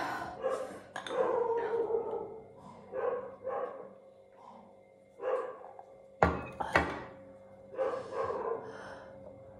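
A dog barking repeatedly, a short bark or run of barks every second or two. Two sharp knocks come a little after six seconds in.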